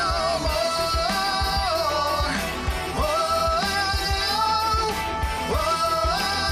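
Background song: a singer holding long, sliding notes over a steady beat.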